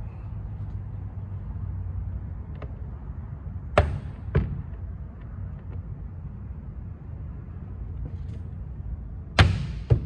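Plastic retaining clips of a car's door trim panel being knocked and pressed into the door: two sharp knocks about four seconds in and a louder pair of thumps near the end, over a steady low hum.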